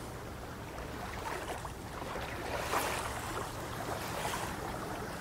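Steady outdoor noise of wind on the microphone and water at the bank, with a couple of faint light knocks about halfway through and near the end.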